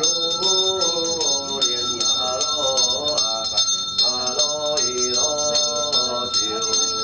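A small bell ringing rapidly in an even rhythm, about four to five strokes a second, over a melody that moves in steps.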